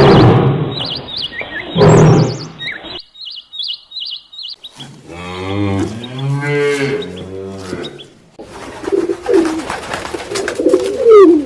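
A run of different animal calls: loud noisy calls with high bird chirps over them for the first three seconds, then a cow mooing for about three seconds in the middle, then another call with sliding cries and chirps near the end.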